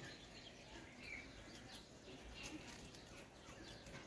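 Near silence: faint outdoor ambience with a few faint, scattered bird chirps.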